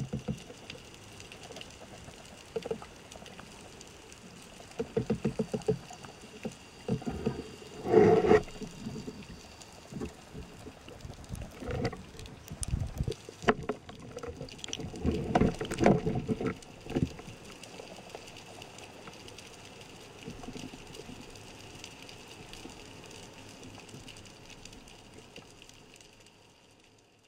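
Underwater sound picked up through a speargun-mounted camera's housing: water rushing and bubbling, with irregular thumps and knocks. The loudest comes about eight seconds in.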